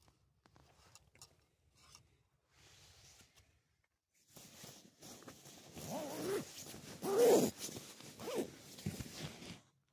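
Faint handling rustles and clicks, then from about four seconds in a zipper is pulled in several strokes, loudest just past the middle, with nylon fabric rustling.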